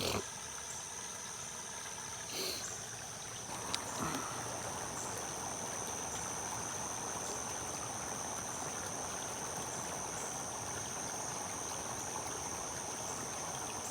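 Water of a small waterfall and stream running steadily, growing a little louder about four seconds in, with a steady high whine over it.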